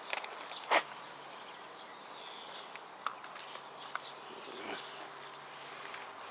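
Outdoor ambience: scattered light clicks and taps, with a few faint bird chirps and a low steady hum.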